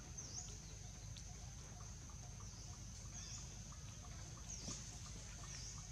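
Faint outdoor ambience: a steady high-pitched insect drone that dips briefly in pitch every second or two, over a constant low rumble.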